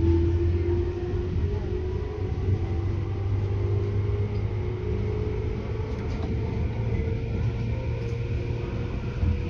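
Tobu 10030 series electric train running, heard from inside the car: a steady low hum with a motor whine that slowly rises in pitch.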